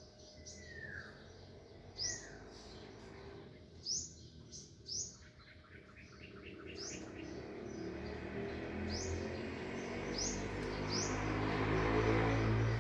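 Wild birds chirping: short, sharp, high chirps repeated every second or two, with one falling whistled note early on. A low rumbling noise swells through the second half, becomes the loudest sound, and stops abruptly at the end.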